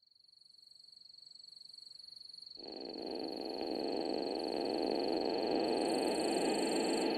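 Night chorus of insects and frogs fading in: a steady high insect trill throughout, joined about two and a half seconds in by a louder, dense lower chorus that cuts in suddenly.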